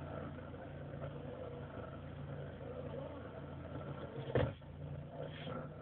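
Car idling with a steady low hum, and a single sharp knock about four and a half seconds in.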